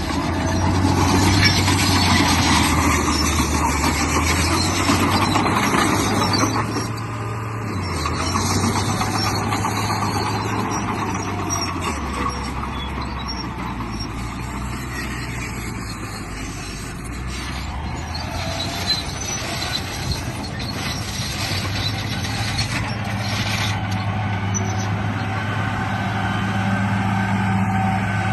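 Radio-controlled bulldozer running, with a low motor hum whose pitch shifts up and down several times as it works.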